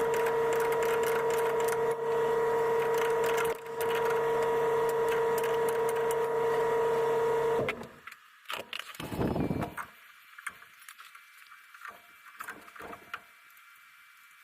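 A power tool running steadily at one pitch with a rough, crackling edge, briefly easing twice, then cutting off about eight seconds in. A few light knocks and handling sounds follow.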